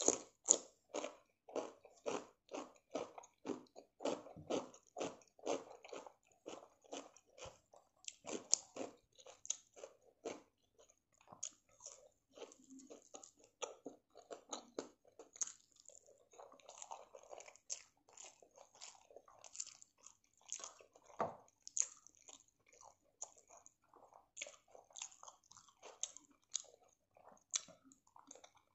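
Close-miked chewing of raw cucumber, crisp crunches about two to three a second for the first several seconds, then softer, sparser chewing and mouth sounds.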